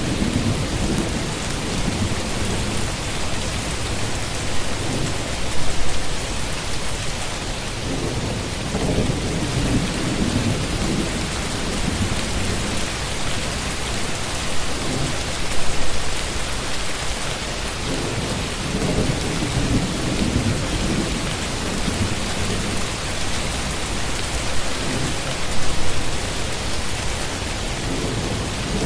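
Steady heavy rain with low rolls of thunder that swell and fade about every ten seconds.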